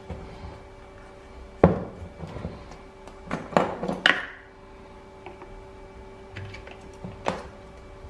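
Clicks and knocks of a metal parking brake release assembly being handled and fitted onto the pedal shaft of a Club Car Precedent brake pedal housing: a sharp knock about a second and a half in, a cluster of knocks around three to four seconds in, and one more near the end.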